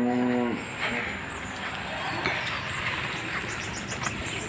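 A newborn calf's moo, one held call that trails off about half a second in. After it come a quiet outdoor background and faint high chirps near the end.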